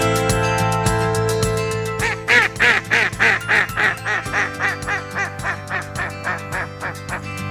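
A bird calling a long series of about fifteen short, harsh notes, about three a second, starting about two seconds in, loudest at first and fading away, over soft instrumental background music.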